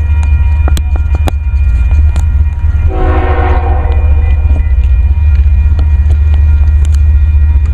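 Diesel freight locomotive horn sounding one chord blast, about three seconds in and lasting about a second and a half, over the heavy low rumble of the passing train. A few sharp clanks are heard now and then.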